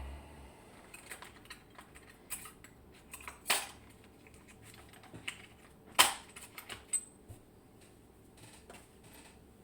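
Small metal parts of an IKON SK6 eurocylinder lock and tools clicking and clinking as the lock is taken apart after picking, with two louder clacks about three and a half and six seconds in.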